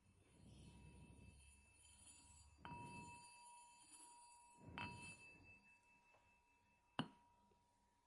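A small bell struck three times, about two seconds apart, the last strike the sharpest. Each strike leaves a steady, high ringing tone that hangs on between strikes.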